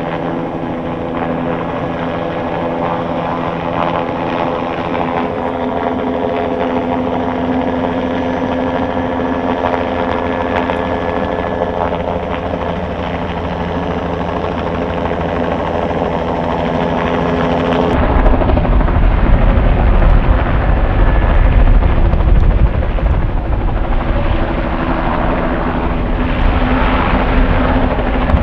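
Low-flying helicopter, a steady drone of rotor and engine with several held tones. About eighteen seconds in, the sound cuts abruptly to a louder, deeper rumble.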